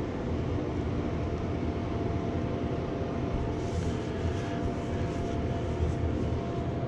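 A steady low mechanical hum with a faint steady tone in it. Soft swishes of an angled paintbrush drawn along the wall come and go about halfway through.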